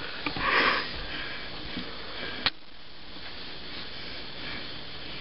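A person sniffing once, a short noisy breath about half a second in, then a single sharp click a couple of seconds later over a faint steady background.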